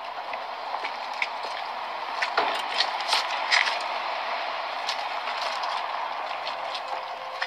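Steady outdoor background noise with scattered light clicks and crackles, the densest cluster a couple of seconds in. A held musical tone enters near the end.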